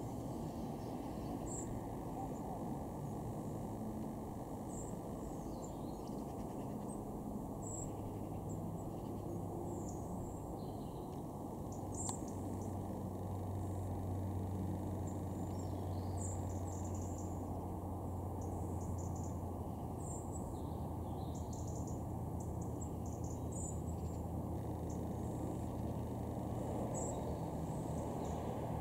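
Outdoor ambience: small birds give short, high chirps every second or so over a steady low rumble, with a low drone that grows louder partway through.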